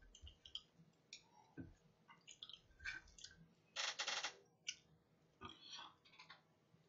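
Faint clicks and taps of metal chopsticks against a plate and a sauce dish as pieces of oyster pancake are picked up and dipped. There is one louder scraping rustle about four seconds in.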